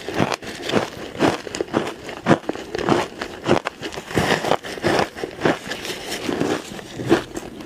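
Ice being bitten and crunched in the mouth, a rapid, irregular run of sharp crunches.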